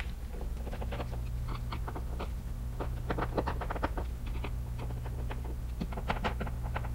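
Screwdriver turning screws to tighten a plastic alarm-panel backplate to the wall: a run of small, irregular clicks and scrapes over a steady low hum.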